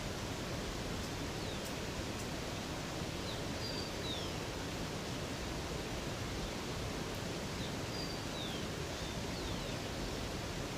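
Steady rush of running water from a river cascade, with small birds giving short high chirps, some falling in pitch, scattered over it.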